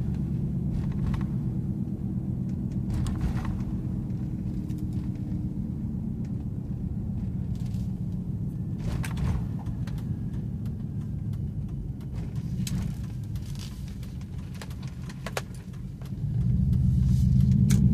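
Truck engine and exhaust droning steadily at cruising speed, heard from inside the cab, with scattered light clicks and rattles. The engine grows louder about sixteen seconds in as the truck accelerates. The exhaust has a hole in the tips and a broken hanger.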